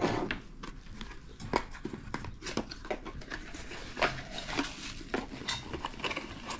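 Scattered light knocks, clicks and rustles of objects being handled and set down on a tabletop: a mate cup, a metal vacuum bottle and a small cardboard box.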